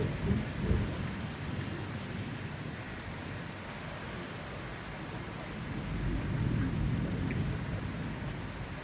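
Heavy rain falling steadily during a thunderstorm, with low thunder rumbling at the start and swelling again about six seconds in.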